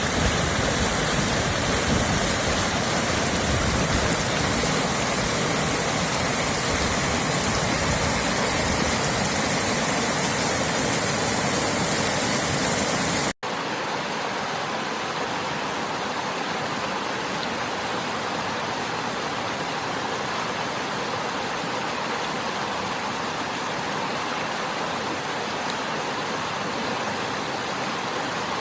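Rushing water of a river stream and waterfall, a steady noise. About 13 seconds in it cuts off for an instant and comes back a little quieter, with less low rumble.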